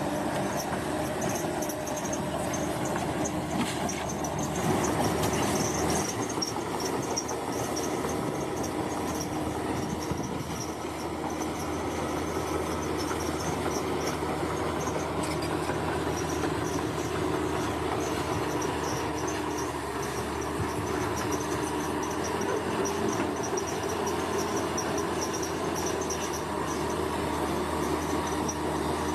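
Crawler bulldozer's diesel engine running steadily at work, with the rumble and rattle of its steel tracks.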